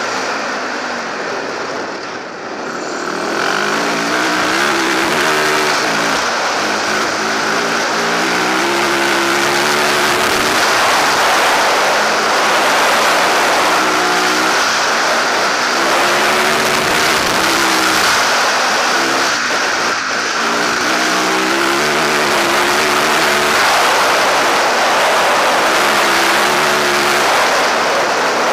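Rally motorcycle engine at speed, its pitch climbing and falling again and again as the rider accelerates, shifts and eases off, with a brief lift-off about two seconds in. A steady rush of wind runs under the engine.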